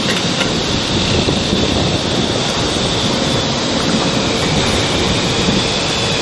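Steady drone of running machinery with a thin high whine over it.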